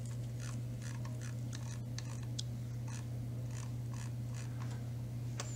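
Computer mouse scroll wheel ticking in irregular runs of short, soft clicks as a document is scrolled, over a steady low electrical hum.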